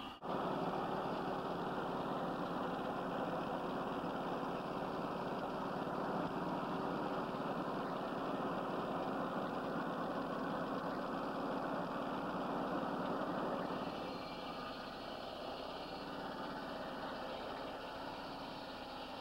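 Portable circular-blade sawmill (a Mobile Dimension mill) running steadily, its engine and large saw blade in a continuous drone. A brief gap comes right at the start, and the sound eases a little about two-thirds of the way through.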